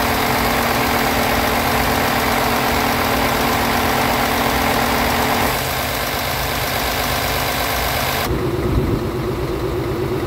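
Scania R truck's inline six-cylinder diesel engine idling steadily, heard from above the open engine bay. About eight seconds in, the sound turns duller and loses its hiss, leaving a wavering hum.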